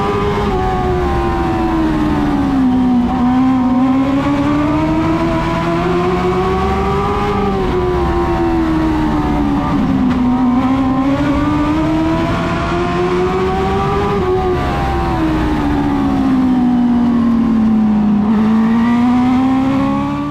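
Dwarf car's motorcycle engine at racing speed, its note climbing for a few seconds and then dropping, over and over, as it accelerates down the straights and lifts for the turns of an oval track. It fades out at the very end.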